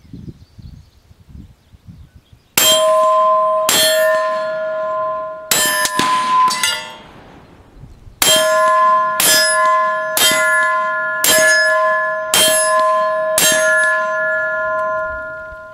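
Bullets striking steel silhouette target plates close by. Each hit is a sharp clang followed by a long bell-like ring. There are about eleven hits: a few spread irregularly in the first part, then a steady string of six about a second apart.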